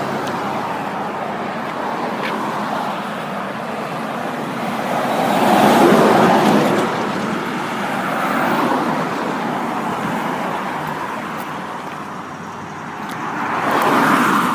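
Road traffic going by, with vehicles passing; the loudest passes come about six seconds in and again near the end.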